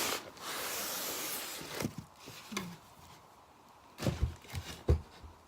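Cardboard box and packaging being handled and opened: a scraping rustle for about a second and a half, then a few light knocks and thumps.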